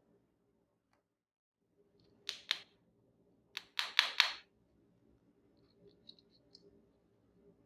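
Small plastic toy kitchen pieces clicking and tapping as they are handled: a pair of sharp clicks about two seconds in, a quick cluster of four or five louder clicks a second later, then a few faint light ticks.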